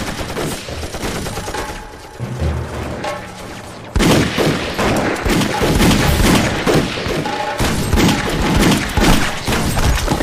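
A gun battle with light machine-gun and rifle fire. Scattered shots come in the first few seconds, then from about four seconds in a rapid, continuous volley of many overlapping shots.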